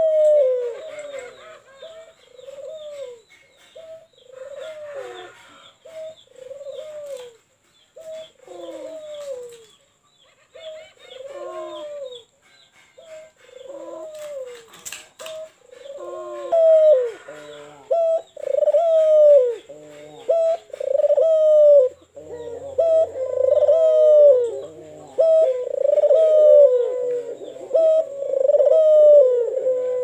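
White Barbary dove (ringneck dove) cooing over and over, one rolling coo about every second. The coos grow louder and run closer together from about halfway through.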